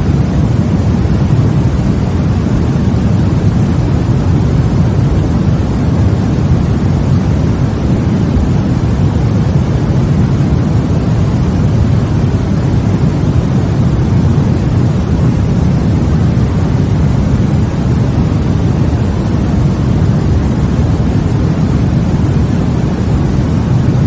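Continuous white noise for baby sleep: a steady, unchanging rush of noise, deepest and strongest in the low range with a softer hiss above it.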